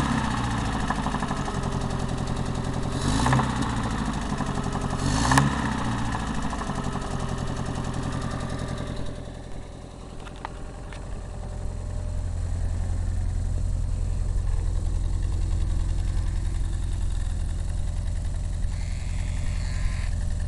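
GAZ engine in an ARO running with a knock. The throttle is blipped twice in the first few seconds, then the engine settles to a steady idle.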